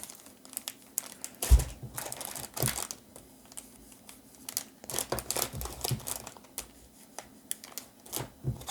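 Foil Pokémon booster pack wrappers crinkling in irregular bursts as the packs are handled, with one thump about a second and a half in.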